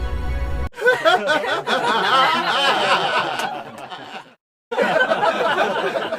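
Audience laughter: a crowd of many people laughing and chuckling together, starting about a second in after a piece of music cuts off, dropping out to silence for a moment past the middle and then resuming.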